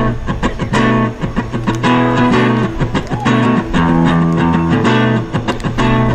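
Acoustic guitar strumming chords in a repeated rhythm.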